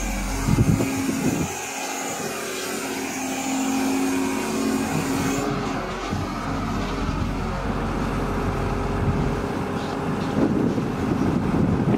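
Diesel engine of a Case 821E wheel loader running steadily as it drives carrying a steel pipe. Bursts of rattling knocks come about half a second in and again near the end.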